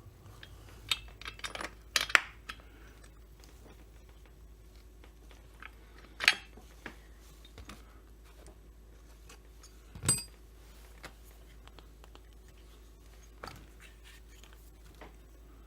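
Small metal parts and hand tools clicking and clinking as they are handled during hand assembly of a chainsaw: a quick cluster of clicks at the start, then single sharp clinks every few seconds.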